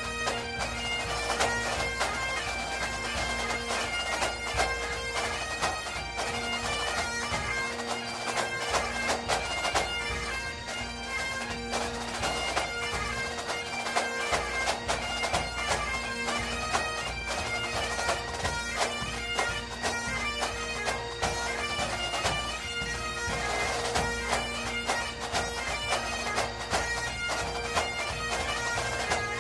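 Bagpipe music: steady held drones under a quick-moving chanter melody.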